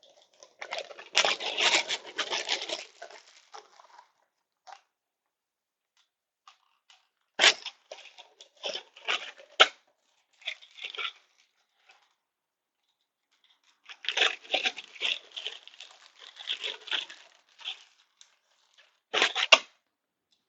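Rustling and sharp clicks of small screws and parts being handled at a workbench, in four short spells with quiet gaps between.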